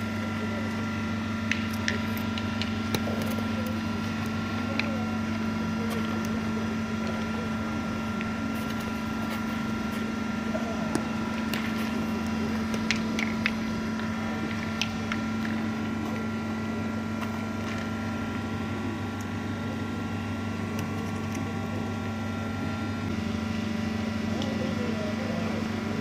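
Steady low mechanical hum, with sharp clicks now and then from steel pétanque boules striking during play.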